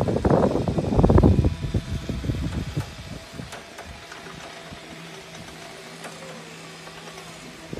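Machinery of a tracked hedge-trimming aerial platform: loud, irregular rumbling for the first three seconds or so, then a quieter, steady motor hum.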